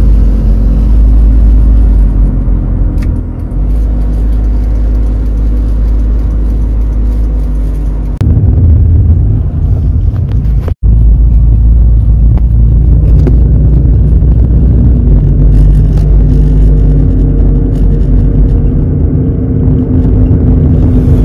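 Honda Accord Cielo driving, its engine and road rumble heard from inside the cabin. The sound cuts out for an instant about halfway through.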